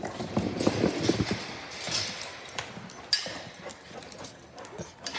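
Labrador Retrievers moving about in wire kennel crates: irregular clicking and clattering of claws and paws on the hard floor and against the wire, busiest in the first second or so, with a sharp click about three seconds in.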